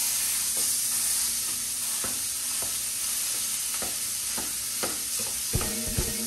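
Raw ground beef sizzling as it fries in a frying pan, with a steady hiss throughout. A spatula chops and scrapes it apart, giving light taps against the pan about every half second that come faster near the end.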